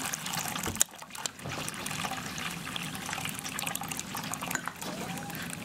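Bean cooking liquid pouring in a thin stream from a metal bowl into a pot of liquid, trickling and splashing. A single sharp knock a little under a second in.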